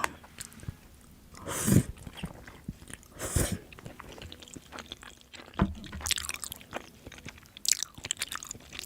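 A person chewing and biting food close to the microphone, with several short, irregular bursts of eating noise.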